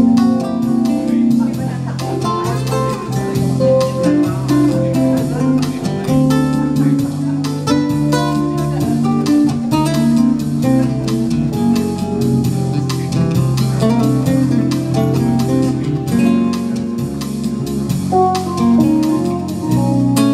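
Live instrumental passage of acoustic guitar and electric keyboard, the guitar picking a melody over sustained low keyboard notes and a steady beat.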